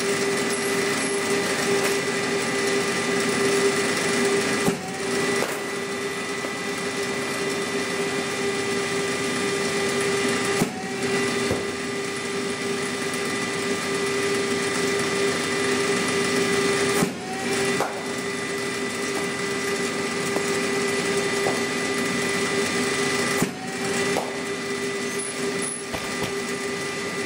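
Cricket bowling machine's motor running with a steady hum, feeding a ball about every six seconds: four sharp knocks, each with a brief dip in the hum as the wheel takes the ball, then recovering.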